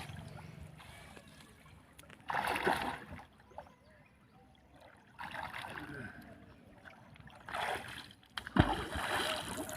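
River water splashing in several short bursts as a fishing net is worked through it, with faint voices in between.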